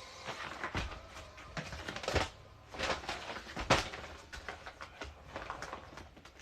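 Irregular clicks and knocks of toy parts being handled and fitted together during assembly, with two louder knocks about two and nearly four seconds in.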